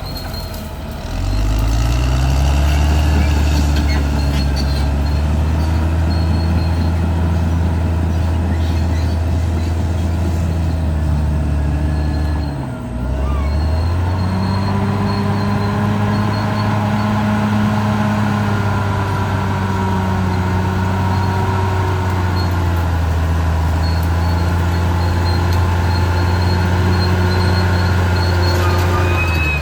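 Caterpillar D6R XL bulldozer's diesel engine running hard under load. It revs up about a second in, drops back briefly just before halfway, then picks up again and holds steady.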